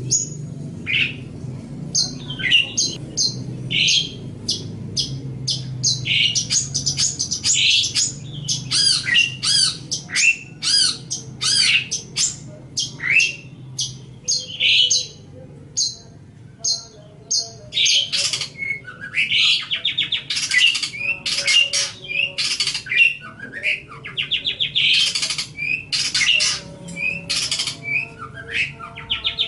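Long-tailed shrike (cendet) singing a fast, varied chattering song of short sweeping whistles, with harsher, buzzier notes in the second half. A faint steady low hum lies underneath.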